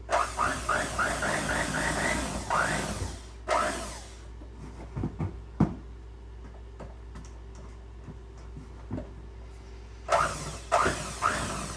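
Frosting of butter and powdered sugar being beaten in a bowl, most likely with an electric hand mixer: rhythmic scraping strokes about three a second, easing off in the middle to a few knocks against the bowl, then starting again near the end.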